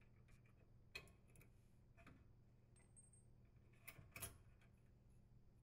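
Near silence with a few faint, short clicks and ticks of metal and wire being handled: the strain relief connector and the dishwasher's power wires are drawn out through the hole in the sheet-metal junction box.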